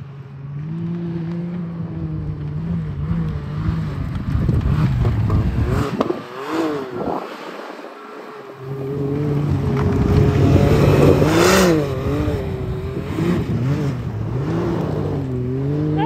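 Can-Am Maverick X3 side-by-side's three-cylinder engine revving up and down over and over as the machine spins and slides through snow. The sound eases briefly about six to eight seconds in, then revs hard again.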